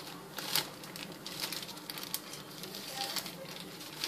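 Beaten eggs cooking in butter in a frying pan, crackling irregularly with scattered small pops, one louder click about half a second in.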